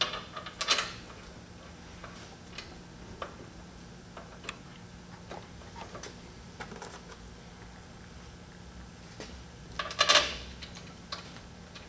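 Small metallic clicks and taps as Loctite-coated bolts are fitted by hand into the drive shaft's U-joint yoke, with a louder clatter just after the start and again near the end, over a faint steady hum.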